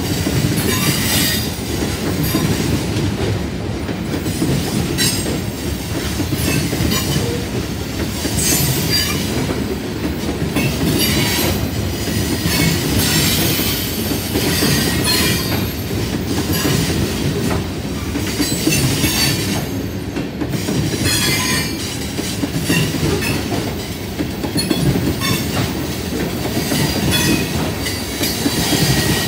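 CSX coal hopper cars rolling past at close range: a steady rumble of steel wheels on rail with clickety-clack over the joints. A high-pitched wheel squeal comes and goes.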